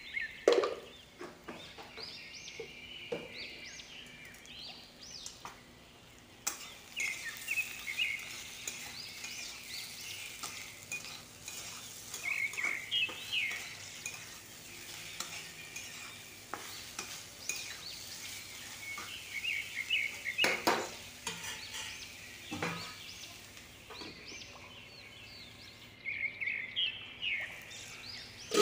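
A plastic spatula stirring and scraping sliced spiny gourd (kakora) around a kadai in bursts of quick strokes, with the oil sizzling under it. Now and then the spatula knocks sharply against the pan.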